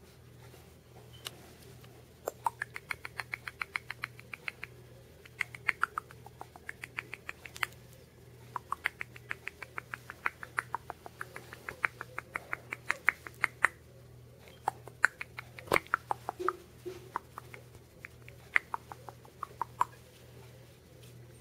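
Runs of short, high kissing squeaks, about six to eight a second, made with the lips to call a puppy's attention, starting about two seconds in and breaking off in several pauses.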